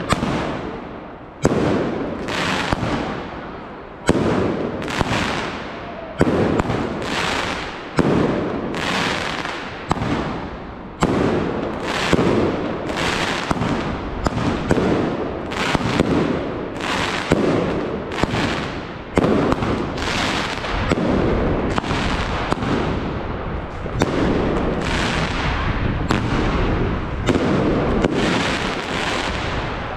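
Firework battery (cake) firing shot after shot, roughly one a second, each a sharp report followed by a fading hiss.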